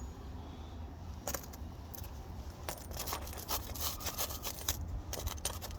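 Small metal tools and parts being handled, with scattered light metallic clicks and rattles over a low steady hum.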